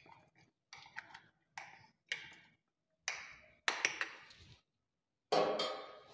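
A metal spoon clinking and scraping against the inside of a glass pickle jar as oil is stirred through the pickle: a run of short clinks, then three longer scrapes, the loudest about a second before the end.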